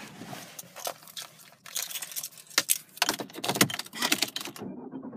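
Irregular rustling with many sharp clicks and taps, thickest in the middle: handling noise from a handheld camera being moved about inside a car's cabin.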